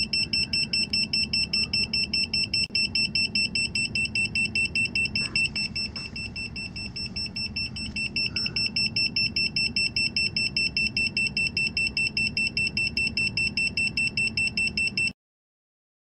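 Smart Sensor handheld carbon monoxide meter's alarm beeping in a fast, even train of high-pitched beeps, several a second: its danger alarm for a high CO reading of several hundred parts per million. It is quieter for a few seconds in the middle and cuts off suddenly near the end.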